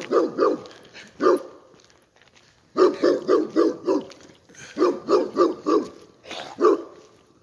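Dogs barking in quick runs of several barks, with short pauses between runs.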